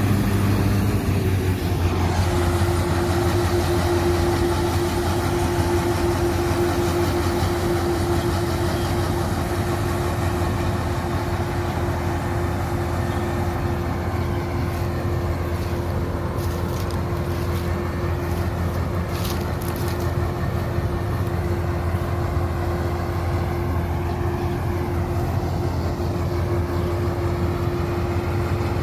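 New Holland TX66 combine harvester running steadily, a constant low engine drone with a steady whine that sets in about two seconds in and holds.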